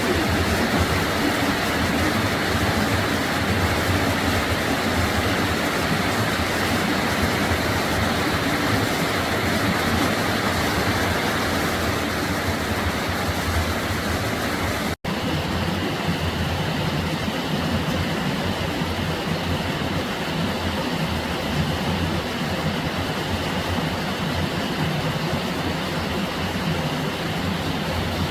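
Mountain stream water rushing steadily over rocks, a constant even rush, cut off for an instant about halfway through.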